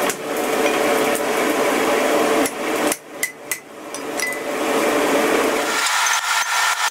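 Ball-peen hammer striking a drift set in a hole in red-hot mild steel on an anvil, driving it through to reopen a punched hole that has gone distorted and too small. The strikes come unevenly, a cluster in the middle and another near the end, some leaving a short metallic ring.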